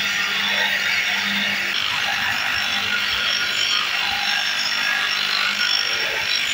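A power tool running steadily as it works the material: a continuous hiss over a low, even motor hum.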